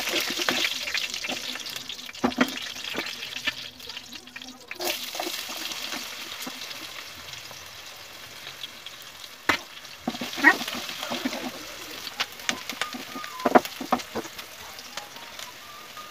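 Mustard seeds and chana and urad dal sizzling in hot oil in a kadai as a spoon stirs them. The sizzle is strongest in the first few seconds, then quieter, with several sharp knocks of the spoon against the pan in the second half.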